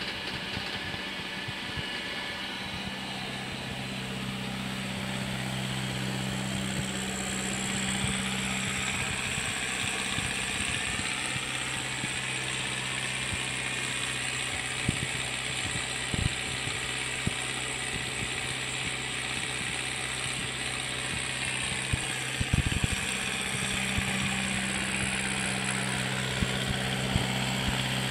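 Massey Ferguson 5455 tractor's diesel engine running steadily while it drives an NC Super 3500 slurry agitator, with a higher whine over the engine hum that rises and falls in the middle, and a few scattered knocks.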